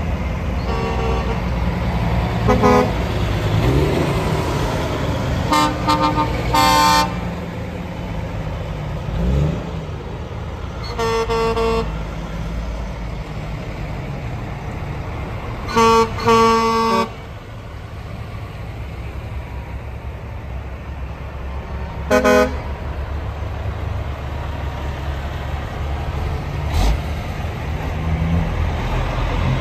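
Diesel engines of passing semi-trailer trucks rumbling steadily, with truck horns sounding again and again: short toots and blasts of up to a second, some in quick pairs.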